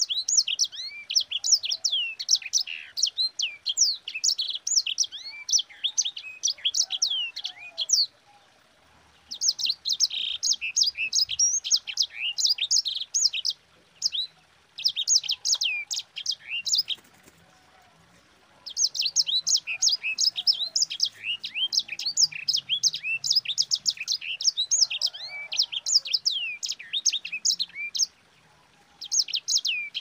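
Caged sanger (black-throated canary) singing its fast, rolling song: long runs of rapid, high-pitched, mostly falling notes, broken three or four times by short pauses.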